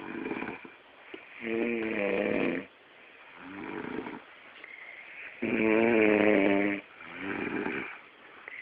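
A person snoring in their sleep: two loud, pitched snores about four seconds apart, the second the louder, each followed by a shorter, softer breath.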